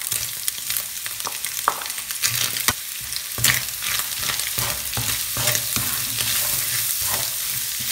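Diced red onions sizzling as they fry in a hot pan of browned ground beef and bacon fat, stirred with a wooden spatula that scrapes and knocks against the pan. The sizzle grows louder a few seconds in.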